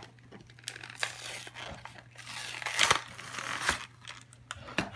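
Cardboard backing being torn off a plastic blister pack, with the plastic crinkling and the card tearing, and a couple of sharp snaps midway.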